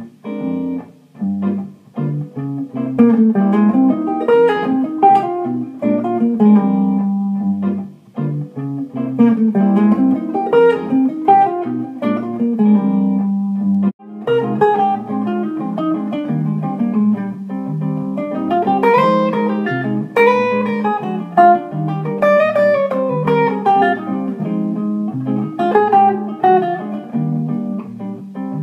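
Semi-hollow electric jazz guitar playing quick single-note bebop lines over a backing track with a bass line. About halfway through the sound breaks off briefly and the playing starts again.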